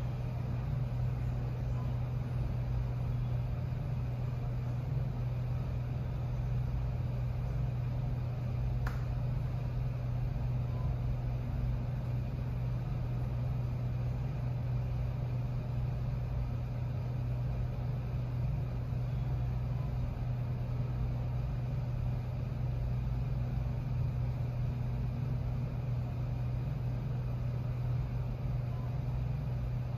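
Steady low machine hum with no change in pitch or level, and a faint single click about nine seconds in.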